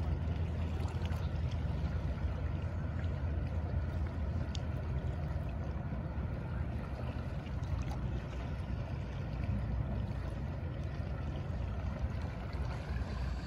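Steady low drone of a passenger ferry's engines as it passes close offshore, a little softer after the first few seconds, under a light hiss of noise.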